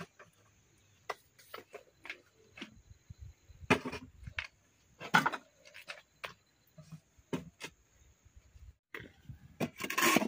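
Metal pots, lids and a plastic container being handled and set down on a bamboo rack: a string of irregular knocks and clatters against the bamboo slats, louder at about four and five seconds in and again just before the end.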